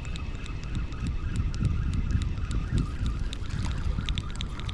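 Spinning reel being cranked to bring in a hooked crappie, with a faint wavering whine and light ticking, over a steady rumble of wind on the microphone.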